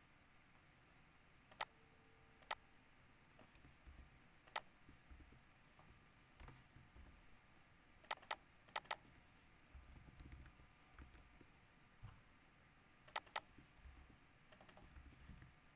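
Computer keyboard and mouse clicks: single sharp clicks or quick pairs and triplets a few seconds apart, over faint low rumble.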